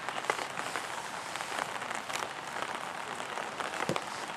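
Rain pattering on a surface close to the microphone, a dense, even crackle of drops, with one sharper knock near the end.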